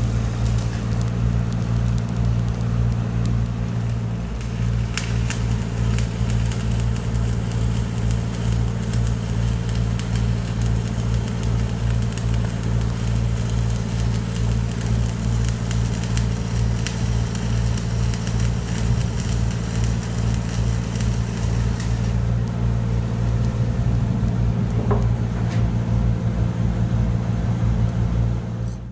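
Engine-driven welding machine running with a steady drone, with the crackle of a stick-welding (SMAW) arc over it as the weld is run on the other side of painted steel. The sound cuts off abruptly at the end.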